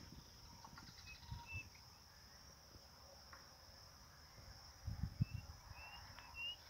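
Faint, steady, high-pitched chirring of insects, with a few short high chirps over it. There are soft handling knocks about five seconds in.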